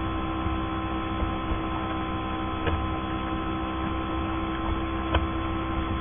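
Steady electrical hum with background hiss under the pause in narration, with two faint clicks about two and a half and five seconds in.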